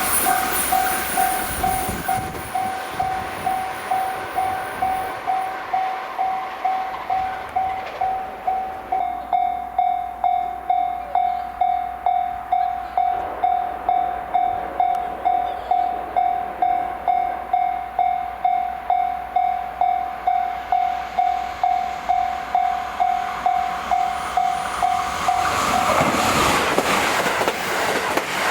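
Japanese level crossing warning bell ringing steadily, about two strikes a second, over the running noise of passing JR Hanwa Line trains. Near the end the bell stops and the rushing noise of a train swells.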